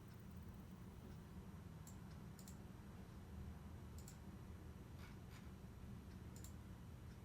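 Faint, sharp clicks, about half a dozen spaced irregularly, some in quick pairs, over a low steady hum.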